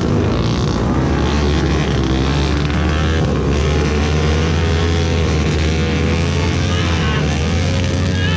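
Dirt bike engines revving, their pitch rising and falling as the bikes labour through deep mud.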